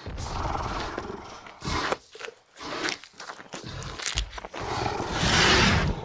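Dinosaur roar sounds from a fight between toy dinosaurs. There are several noisy roars, the loudest a little before the end, with short sharp knocks in between.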